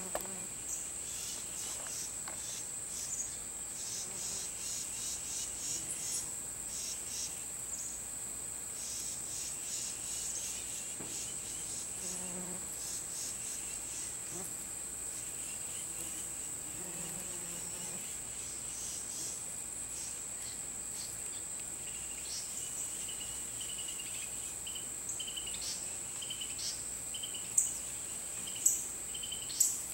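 Steady high-pitched trilling of insects, with a rapid pulsing chirp through the first third and a lower, repeated chirp in the last third. Three sharp clicks near the end are the loudest sounds.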